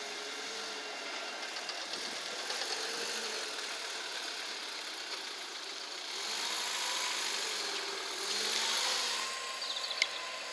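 Electric tram on the Nottingham Express Transit network moving through a stop, its traction motors giving a faint whine that rises and falls in pitch over steady background rumble. A single sharp click comes near the end.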